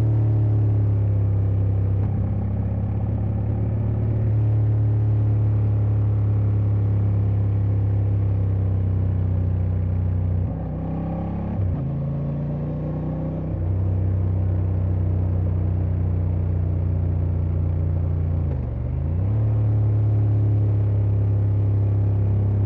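Honda Transalp XL750's 755 cc parallel-twin engine running steadily on the road under light throttle. About ten seconds in the engine note drops and quietens, then picks back up over a few seconds, and near the end it dips briefly once more before settling back to the same steady note.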